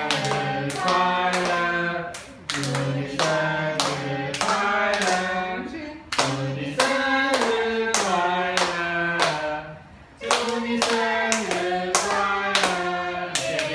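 A group singing a birthday song together while clapping along in time, about two to three claps a second.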